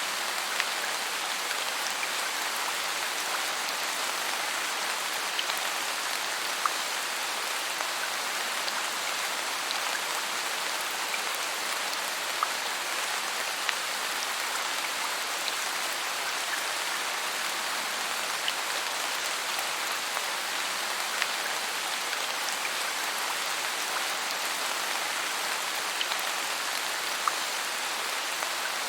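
Steady rain falling on forest foliage: an even hiss with occasional distinct drops ticking nearby.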